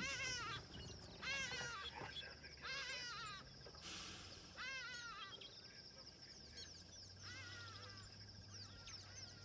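Animal calls: short bursts of squeaky, mewing notes, each burst a quick run of rising-and-falling notes, coming about once a second in the first half and fainter after, over a steady high-pitched whine.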